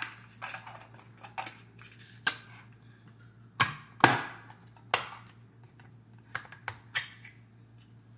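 Kitchen clatter: a string of sharp knocks and clacks as things are handled and set down on a counter, the loudest bunched about halfway through.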